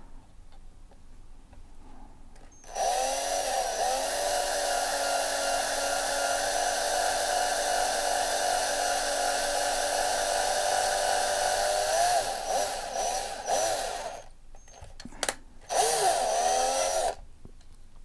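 Small electric drill boring pilot holes into the rivet heads on the base of a die-cast toy car. It starts about three seconds in and runs steadily for about eleven seconds, its pitch sagging as the bit bites, then stops; a short blip and a second run of about a second and a half follow near the end.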